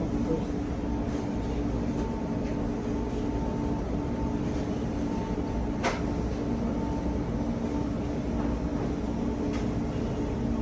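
Steady hum and whir of commercial kitchen machinery, such as ventilation or refrigeration, at an even level, with a single sharp click about six seconds in.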